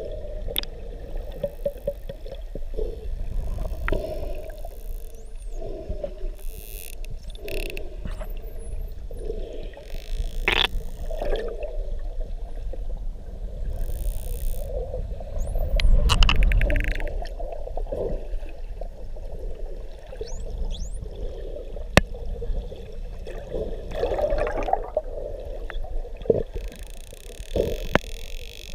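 Indo-Pacific bottlenose dolphins heard underwater: thin whistles gliding up and down and scattered sharp clicks, over a constant wash of water noise.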